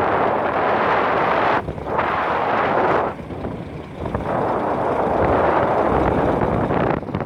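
Hitachi 470 excavator's diesel engine working under load, the noise surging and dropping back several times as the machine works.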